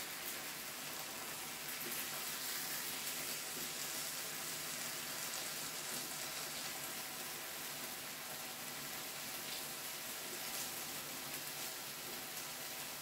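Meat sizzling steadily on a hot Korean barbecue grill.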